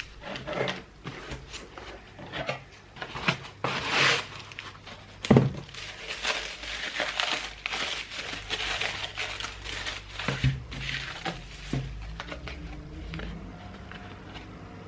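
Packaging crinkling and rustling as it is handled, with scattered light clicks and one sharper knock about five seconds in.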